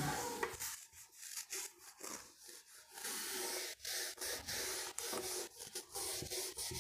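Scratchy rubbing strokes of writing by hand, in short runs of about half a second to a second with brief breaks between them.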